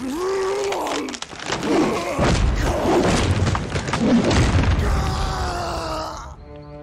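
Fight sound in an animated cartoon: a gruff male voice grunting and groaning with effort, mixed with heavy thuds and impacts, and music with long held notes coming in near the end.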